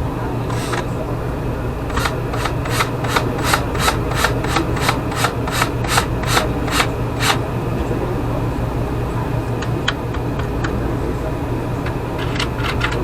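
A hand tool rasping back and forth in a steady run of about fourteen strokes, roughly three a second, stopping about seven seconds in, followed by a few scattered clicks, over a steady low hum.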